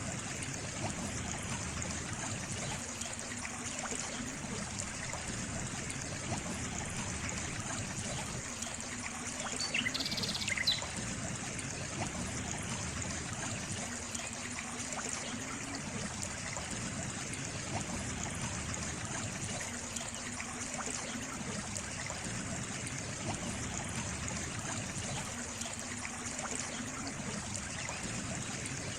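Stream water trickling and burbling steadily, with a brief high chirp about ten seconds in.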